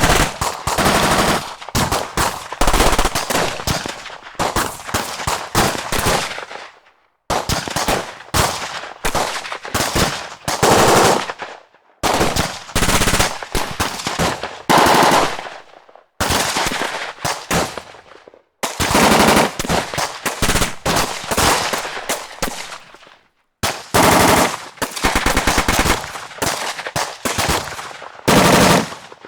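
Battle gunfire sound effects: bursts of rapid automatic fire mixed with single shots, each firing run lasting a few seconds and fading out in an echoing tail. The runs are broken by short silences about five times.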